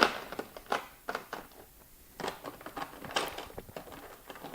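Hands handling plastic board-game miniatures and their packaging: a sharp click, then irregular light clicks and rustling.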